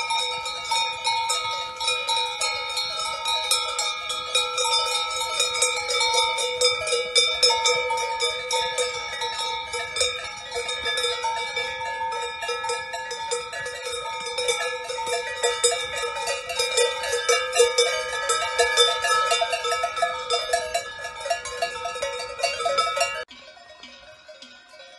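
Cowbells on a small herd of cows clanking and ringing continuously as the cows walk past. Near the end the sound drops suddenly to a fainter ringing.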